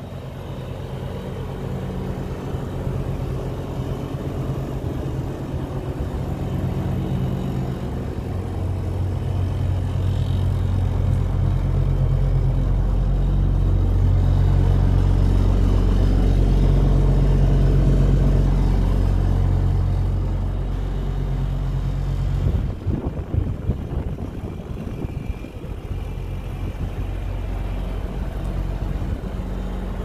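Diesel engine of a Massey Ferguson 27 combine harvester running steadily at a constant speed, growing louder through the middle and easing off again.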